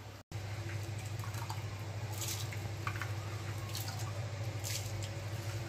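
Water boiling in an aluminium pot of rice with bay leaves and whole spices, bubbling with scattered pops and small splashes over a steady low hum; the rice is being parboiled.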